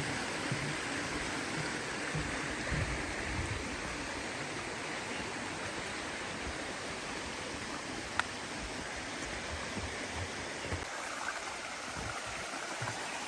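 Mountain creek running steadily, with one sharp click about eight seconds in.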